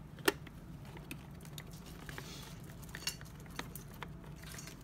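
Small clicks and scrapes of a hand screwdriver driving machine screws into a hoverboard's plastic shell, with one sharper click just after the start, over a low steady hum.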